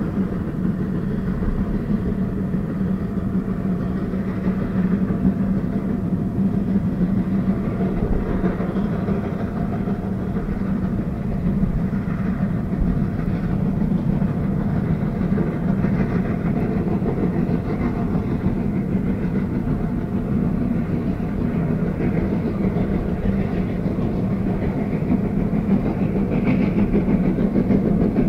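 A train running on the rails: a steady rumble with wheel clatter.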